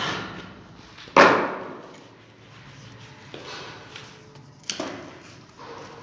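Knocks on a galvanised-iron modular switch box being pressed flush into fresh mortar in a wall: a sharp one about a second in, the loudest, with a short fading tail, and a softer one near five seconds.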